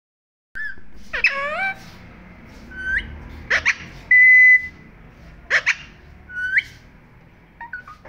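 Alexandrine parakeet giving a string of short whistled calls and squawks with quick pitch sweeps, and one steady held whistle about four seconds in, the loudest sound.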